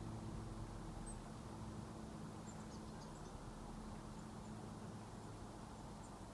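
Faint, high, thin chirps from small songbirds, several short notes in a quick cluster about two and a half to three and a half seconds in, over a low steady rumble.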